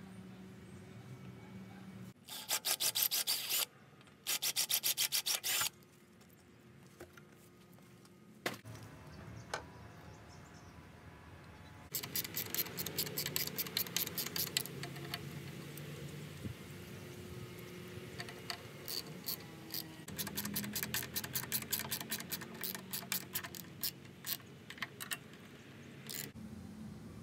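Small hand wrench tightening a nut on a metal fitting of a live-steam model locomotive. Two short runs of rapid metallic clicks come about two and four seconds in, followed later by metal scraping and rattling clicks as the nut is worked round.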